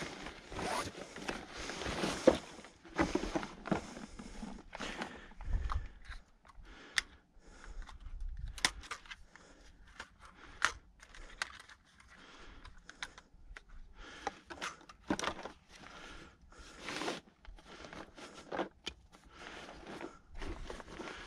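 Irregular scrapes, crunches and clicks of a hiker and his gear moving about on rough limestone rock, with rustling from clothing or a bag.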